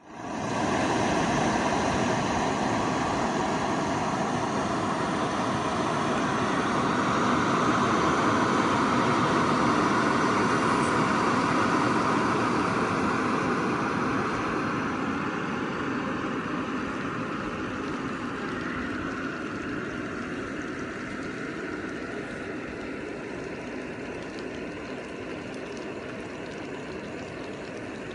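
Air blower for fish-pond aeration running steadily, a continuous machine whir. It grows gradually fainter over the second half.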